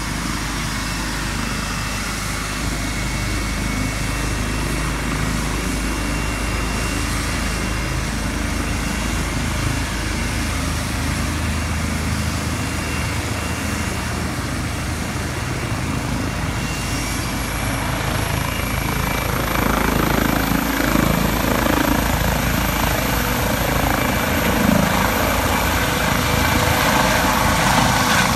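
Eurocopter EC135 helicopter's twin turboshaft engines and main rotor running, with a steady high turbine whine over the rotor noise. In the second half it grows louder as the helicopter powers up and lifts off into a hover.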